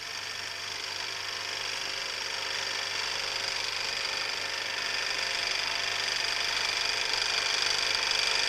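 A steady mechanical whirring hiss with a low hum underneath, slowly growing louder.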